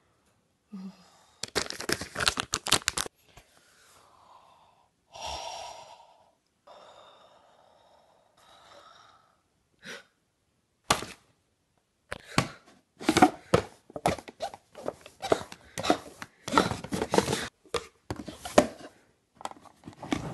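Unboxing noises: plastic wrap crinkling and cardboard packaging and foam inserts being handled and torn open, in bursts of rapid crackling, one short burst early on and a longer run through the second half.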